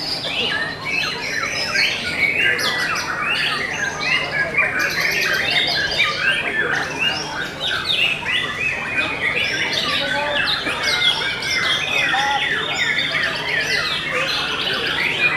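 Many white-rumped shamas (murai batu) singing at once in contest cages: a dense, continuous tangle of fast chirps, whistles and squawky rattles that overlap without a break.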